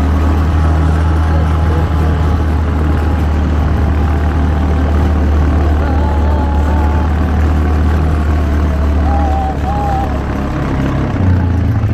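ATV engine running with a steady low drone, which eases off and changes pitch near the end.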